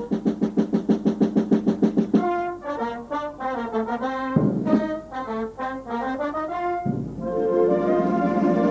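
Concert wind band playing, brass to the fore: rapid repeated short notes, about six a second, for two seconds, then runs of notes sweeping down and back up twice, settling into held chords near the end.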